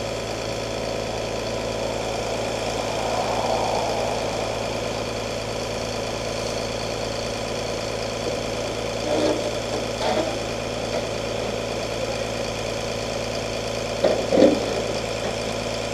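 Diesel engine idling steadily, with a few short knocks over it, twice about halfway through and once more near the end.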